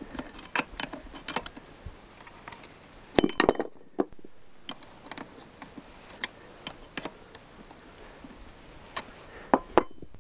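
Light metallic clicks and clinks of a spanner and then fingers working the nut off the shaft end at the flywheel of a Soviet Ural-2 chainsaw's magneto. There are louder knocks about three seconds in and again near the end.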